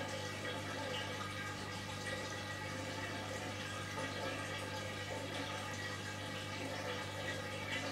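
Electrolux EWF9042R7WB front-loading washing machine running mid-cycle: a steady low hum with water running through the machine.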